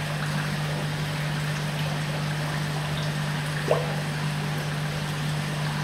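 Water trickling and splashing into a koi fry tank from an inlet pipe, over a steady low hum. A brief rising squeak about two-thirds of the way through.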